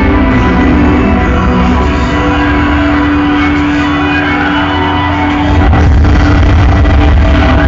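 Loud electronic club music from a DJ set played over a big sound system. A long held note sustains over thinner bass, then the heavy bass comes back in about two-thirds of the way through.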